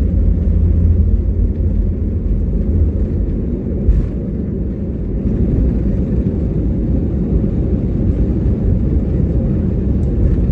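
Airbus A321neo's Pratt & Whitney PW1100G geared turbofan engines at takeoff power: a loud, steady deep rumble.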